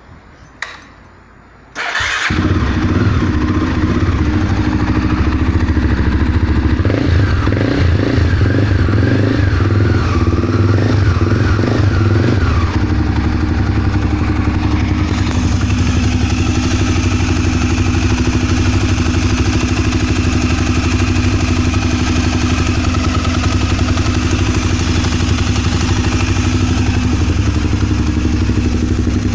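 Honda Twister motorcycle's single-cylinder four-stroke engine starting about two seconds in after a click, then running at a steady idle that wavers for a few seconds before settling. The engine is recorded to show an abnormal noise.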